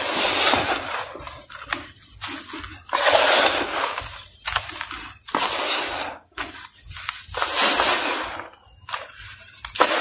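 Hands crumbling and pressing dry, dusty powder with small gritty lumps in a plastic tub: repeated swells of crunchy, sandy rustling, about five over the stretch, each fading before the next handful.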